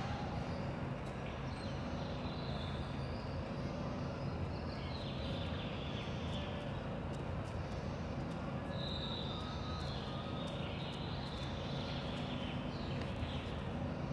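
Steady outdoor ambience: a constant low hum with faint, shifting high chirping over it and a few scattered faint clicks.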